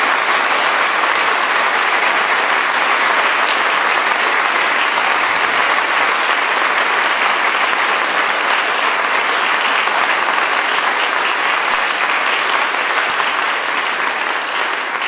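Audience applauding steadily, a dense mass of many hands clapping that starts to die away near the end.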